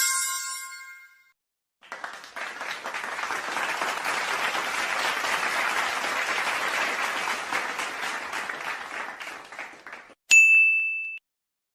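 A bell-like ding ringing out at the start, then about eight seconds of a crowd applauding, and a short high ding near the end.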